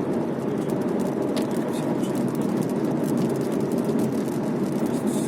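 Steady car cabin noise while driving on a wet road: the low rumble of tyres and engine, with faint scattered ticks from rain on the car.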